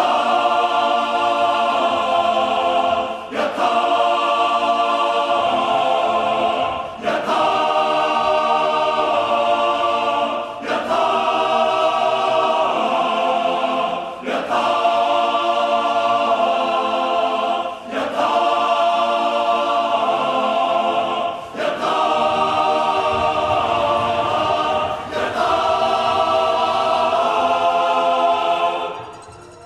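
A large men's glee club choir singing in full harmony: long held chords in phrases of about three and a half seconds, each ended by a brief breath pause before the next.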